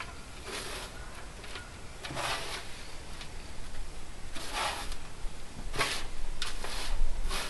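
Hands rummaging through the soil in a potato grow bag: a series of short, irregular scraping and rustling sounds.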